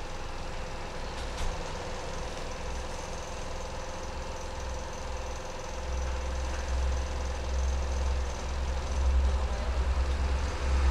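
Low, steady engine rumble with a faint steady hum over it; the rumble grows louder about six seconds in.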